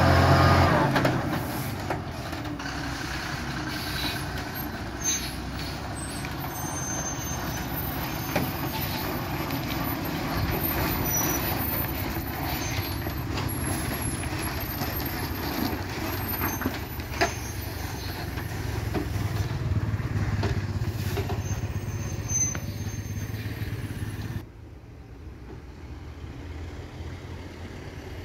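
Heavily loaded multi-axle lorry's diesel engine running steadily at low speed as it crawls around a tight hairpin bend, loudest in the first second, with a few short sharp sounds along the way. About 24 seconds in it drops suddenly to a quieter, more distant engine sound.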